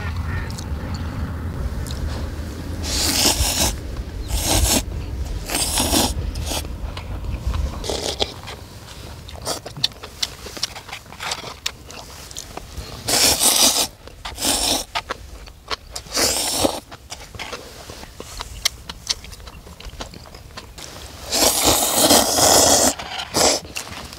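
A person eating instant cup noodles with chopsticks: a series of loud noodle slurps, about seven, the longest near the end, with soft chewing and chopstick clicks between them.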